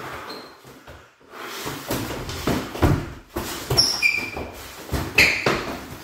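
Boxing gloves thudding and sneakers squeaking and shuffling on a laminate floor as two people spar and grapple. Thuds start about two seconds in, and several short, high squeaks come near the end.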